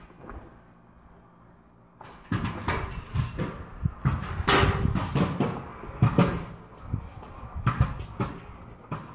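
Irregular knocks, clatters and rustling close to the microphone, as if objects are being handled or bumped, starting about two seconds in after a near-quiet start.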